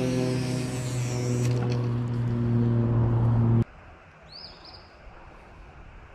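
A loud, low horn-like tone with several overtones, shifting pitch slightly, cuts off abruptly about three and a half seconds in. After it come quiet outdoor sounds with a couple of short bird chirps.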